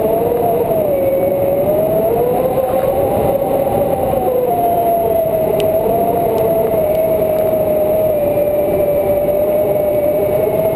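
Wind rushing hard over the microphone of an action camera on a pole during a tandem paraglider flight, with a steady hum through it that wavers slowly in pitch.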